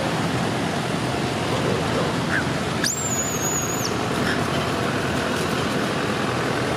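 A steady rushing noise throughout, with a single thin, high-pitched squeal about three seconds in that lasts about a second.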